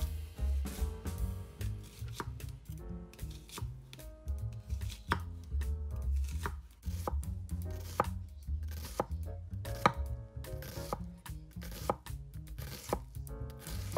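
Knife chopping vegetables on a cutting board: quick, irregular strikes, several a second, over light background music.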